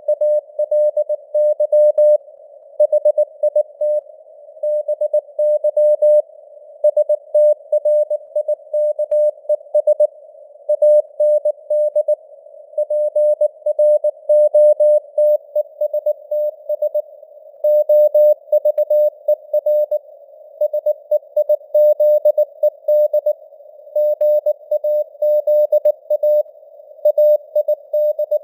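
Morse code (CW) at about 19 words per minute: a single steady mid-pitched tone keyed on and off in dots and dashes, over a narrow band of radio-style hiss. The signal strength rises and falls (QSB fading).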